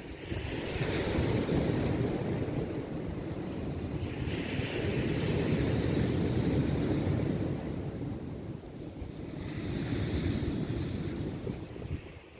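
Sea surf breaking and washing up the shore in three swells, over a steady low rumble of wind on the microphone.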